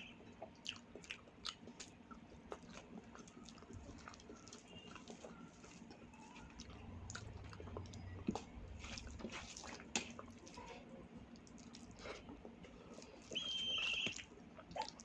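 Close-miked chewing and biting of a mouthful of home-cooked Indian food, with small wet mouth clicks. A brief high squeak sounds a little before the end.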